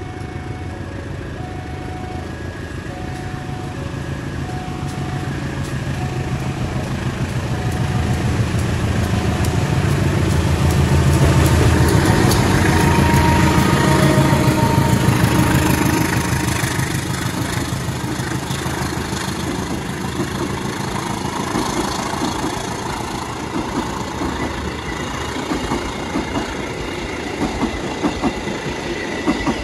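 A GE CC 203 diesel-electric locomotive's engine grows louder as it approaches and passes close by, and is loudest about halfway through. Passenger coaches then roll past, with wheel clacks over the rail joints near the end.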